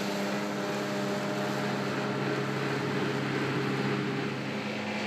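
Tractor engine running steadily under PTO load while a rear-mounted disc mower cuts grass: an even engine hum under a broad whirring hiss from the spinning cutterbar discs.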